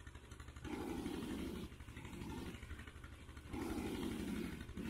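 A small engine running steadily with an even low throb, under the sloshing of thick mud and water as a hand net is dragged and scooped through a drained pond.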